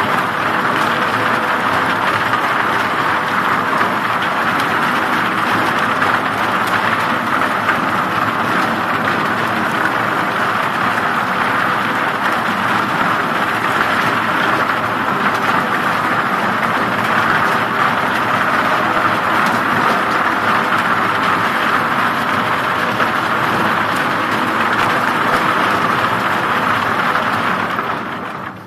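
Log debarking machine running: its toothed rollers tumble a trough full of thin wooden poles, stripping off the bark. It makes a loud, steady, dense rattle of wood against metal over the machine's constant hum, and fades out near the end.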